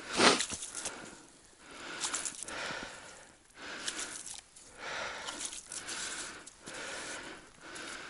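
A person breathing heavily close to the microphone, in and out about once a second, with a louder sharp breath just after the start.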